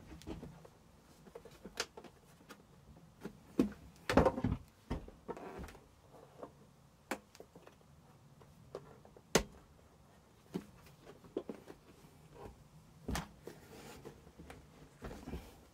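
An air fryer's casing being handled and turned over during a strip-down: irregular clicks and knocks, with a louder cluster of knocks about four seconds in.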